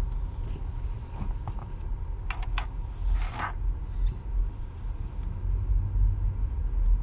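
Car driving on a snow-covered highway heard from inside the cabin: a steady low road and engine rumble, with a few short clicks and a brief hiss around the middle.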